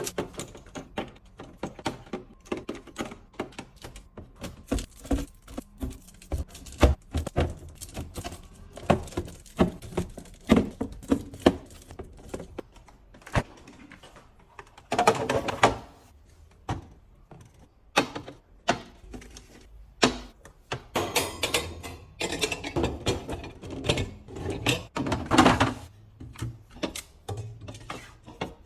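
Food containers, jars and bottles being handled and set down during fridge restocking: a run of frequent light clacks, taps and thunks, with longer stretches of noisier handling about halfway through and again near the end.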